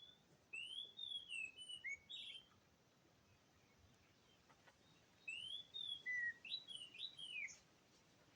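Oriental magpie-robin (kacer) singing: two phrases of clear whistled notes that slide up and down, a few seconds apart.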